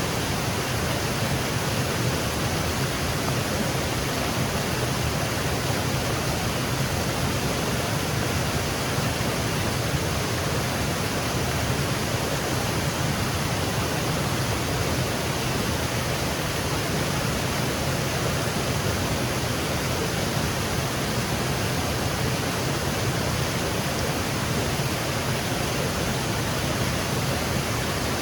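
Small woodland waterfall cascading over rocks: a steady, unbroken rush of falling water.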